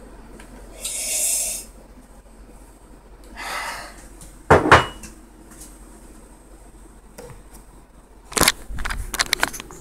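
A ceramic mug knocked down onto a hard surface twice, a little before halfway, after two short hissy sounds. Near the end comes a quick run of clicks and bumps from the camera being handled.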